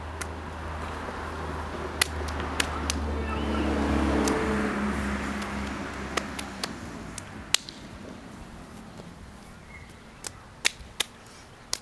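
Hands clapping and slapping together in a two-person clapping handshake routine: sharp single claps at irregular intervals, some in quick runs of two or three, the last cluster near the end. Under them a low rumble swells to about four seconds in, then fades away.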